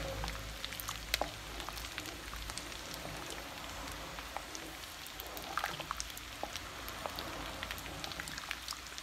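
A pot of chicken soup simmering with many small popping ticks, while a spatula stirs it and scrapes the pot. It is kept stirring because beaten egg and cornflour have just gone in, which would otherwise clump.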